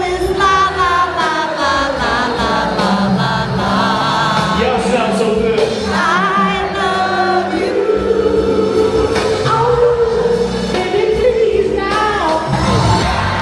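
Soul music playing, with several voices singing together over the band.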